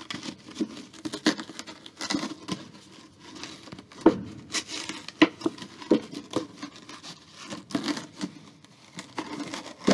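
A cut 2-liter plastic soda bottle crinkling and crackling as it is handled and wiped dry against a shirt sleeve, with irregular rustles and a few sharper clicks.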